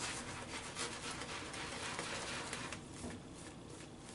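Shaving brush working wet shaving-soap lather over the face, a quick wet scrubbing of bristles in thick lather that turns softer from about three seconds in.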